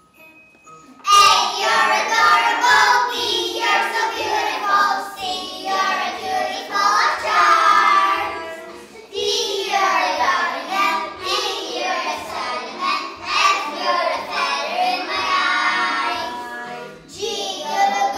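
A group of young children singing together, starting about a second in after a moment of quiet.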